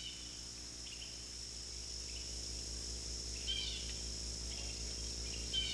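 Steady high-pitched insect drone, with a few brief bird calls at the start, in the middle and near the end, over a low steady hum.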